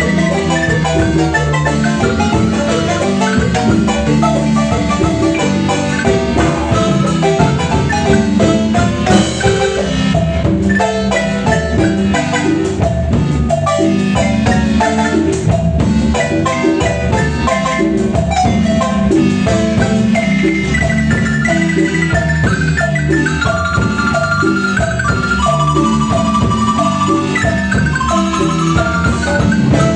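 Marimba music: a lively tune of quick, repeated mallet notes over a steady bass line, with some drum percussion.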